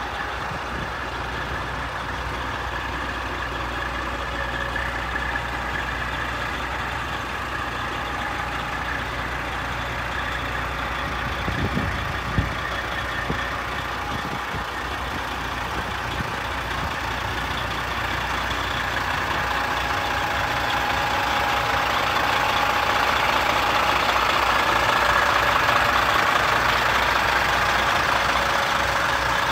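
Freightliner wrecker truck's diesel engine idling steadily, growing louder in the last third.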